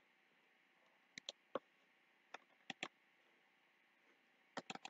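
Computer mouse clicking, a scattering of short sharp clicks, some in quick pairs and three in a row near the end, against near silence.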